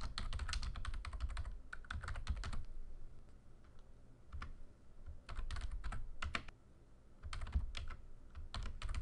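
Typing on a computer keyboard in quick runs of keystrokes with short pauses between words, the longest pause about two-thirds of the way through.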